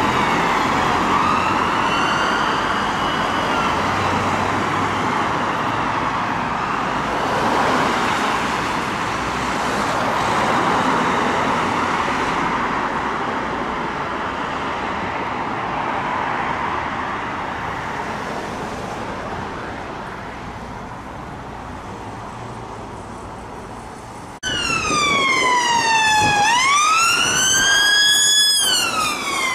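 Ambulance siren wailing in the first few seconds, then giving way to steady road-traffic noise. About 24 seconds in, a sudden change to an ambulance response car's siren, loud and close, wailing down and up.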